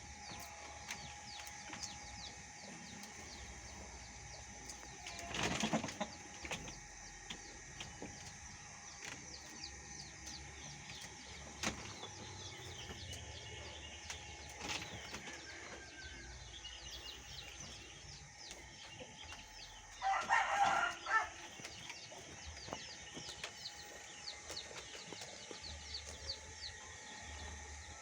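Farmyard animal sounds: a steady background of many faint high chirps, a short rustling noise about five seconds in, and a brief animal call lasting about a second near the twenty-second mark.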